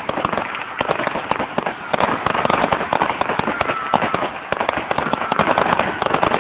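Fireworks going off in a dense, unbroken crackle of rapid bangs and pops.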